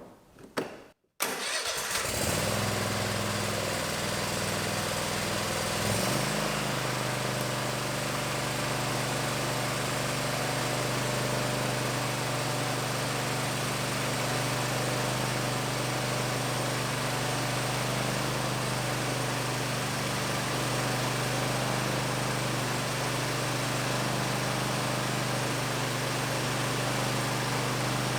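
Kohler 747 Confidant V-twin engine on a zero-turn mower starting about a second in after a few clicks, then running steadily. Its pitch changes once about six seconds in, then holds. This is the first run after an oil change, filling the new oil filter.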